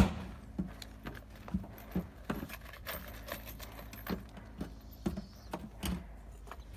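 Hammer blows on the wooden wall of a juniper raised garden bed as metal brackets are fixed between its planks: one loud blow at the start, then lighter taps about two a second.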